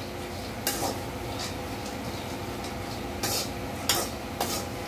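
Peanuts being dry-roasted in a pan, stirred with a metal spatula: several scraping strokes of metal against the pan over a steady hiss.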